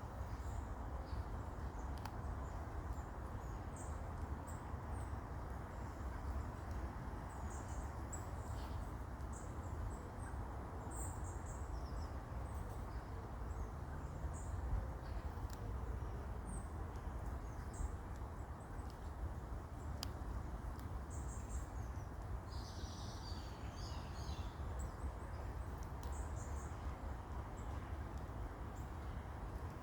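Short, high-pitched chirps scattered throughout, with a denser run of them about two-thirds of the way in, over a steady low rumble.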